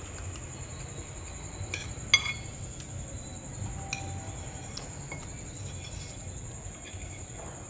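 Metal spoon clinking against a bowl as food is scooped, a few sharp clinks with the loudest about two seconds in, over a faint steady high-pitched whine.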